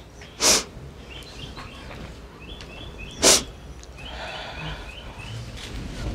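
Two short, sharp sniffs close to a microphone, about three seconds apart, well above the low background of the room.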